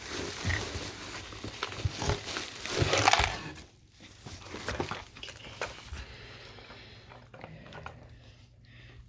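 Packing material rustling and crinkling as a boxed item is handled and unpacked, loudest in the first three seconds, then fainter scattered handling noises.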